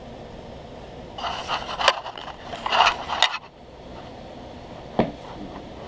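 Crinkly rustling and scraping close to the microphone in two bursts between about one and three and a half seconds in, then a single sharp knock about five seconds in, over a steady low hum.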